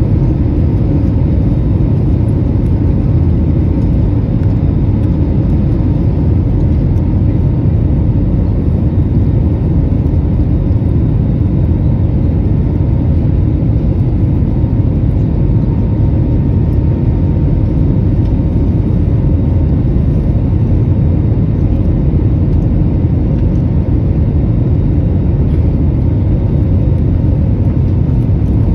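Steady rumble of an Airbus A321neo's engines and airflow heard inside the cabin during the climb after takeoff, loudest and deepest at the low end. A faint steady whine sits over it and fades out about halfway through.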